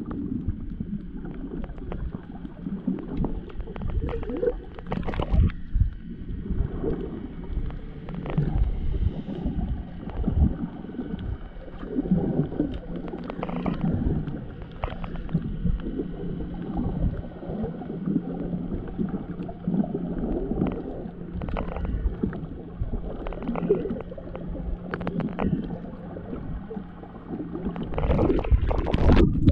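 Muffled water gurgling and sloshing, with the steady low hum of a boat motor underneath.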